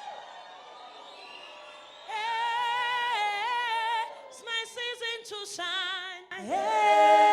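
Voices singing a gospel song unaccompanied, with long held notes that waver; the singing comes in about two seconds in, breaks off briefly, and enters louder near the end.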